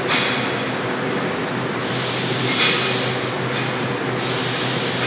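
CNC bending machine running: a steady mechanical hum under a hiss that surges up sharply a few times, near the start, about 2 seconds in and about 4 seconds in.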